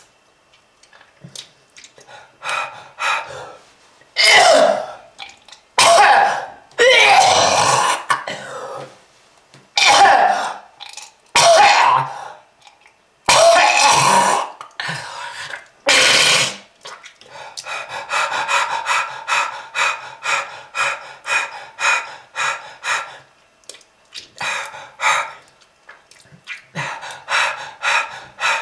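A person's smoker's cough: a series of hard, separate coughs and throat-clearing hacks, then a long run of quick, short coughs, about four or five a second.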